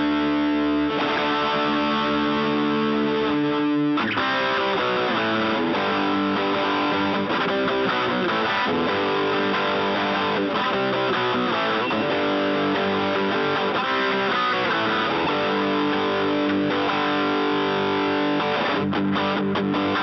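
Gibson Les Paul electric guitars played with overdrive through an amp: a sustained chord rings for about four seconds, then gives way to a busier riff of changing notes and chords.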